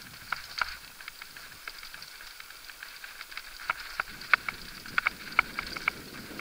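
Mountain bike riding down a dirt and rock singletrack: tyres crunching over gravel with irregular sharp clicks and rattles from the bike over the bumps, thickest in the second half.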